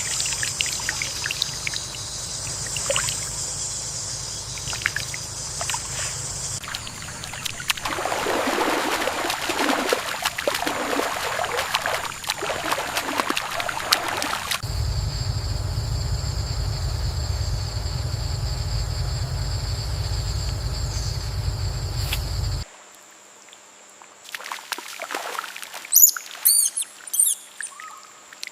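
Rice-paddy ambience that changes in stages: water trickling and splashing under a steady high hiss, then a low steady rumble. After a sudden drop in level about 23 seconds in, there are several short bird chirps.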